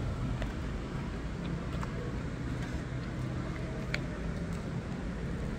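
Steady low hum of background street noise, with a few faint clicks, the clearest about four seconds in.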